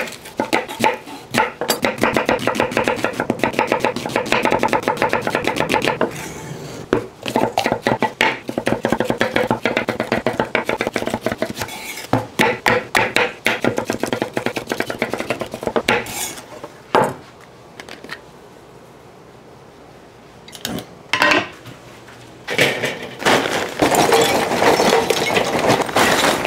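A chef's knife slicing an onion and a green bell pepper on a wooden cutting board, making many quick knife strikes in runs. Near the end, lump charcoal is poured from the bag and clatters into a kettle grill.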